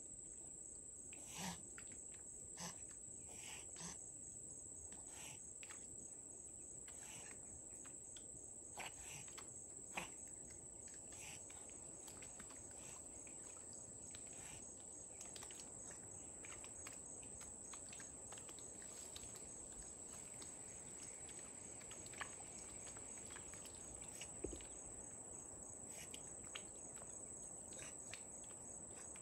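Insects droning steadily at a high, even pitch, with scattered faint short clicks throughout.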